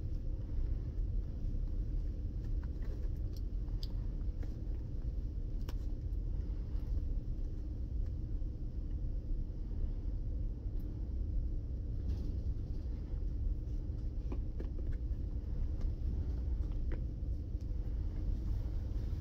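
Steady low rumble and hum of room ventilation in a large training room, with a few faint soft clicks and rustles as socks are pulled onto a manikin's feet.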